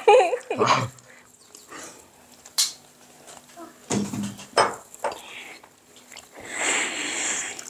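Short bursts of people's voices, a few small clicks and knocks, and a breathy, hissing stretch near the end.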